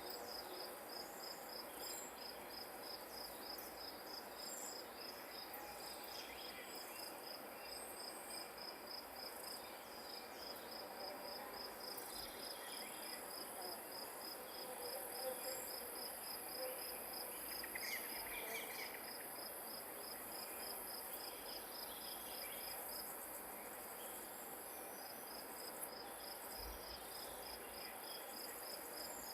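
Grass insects chirping: one sings a steady, rapid, even train of high-pitched pulses that breaks off briefly twice, and a second, higher continuous trill joins about halfway through, over a soft outdoor hiss.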